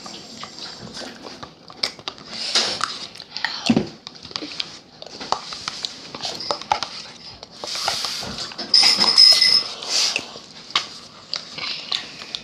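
Clinks and clatter of a bowl and utensils, with a dog's whining sounds, loudest about eight to ten seconds in.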